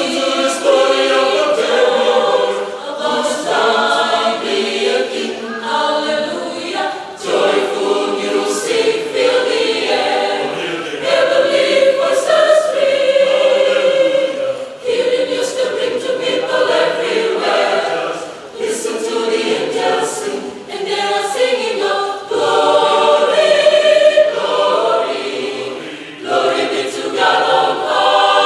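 Mixed choir of women's and men's voices singing together under a conductor, in sung phrases with short breaks between them.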